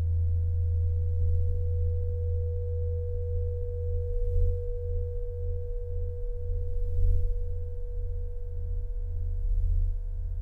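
Improvised electronic drone music: a deep low drone that pulses unevenly, under a steady sine-like tone near 500 Hz with faint overtones above it. Soft swells of hiss rise and fade three times.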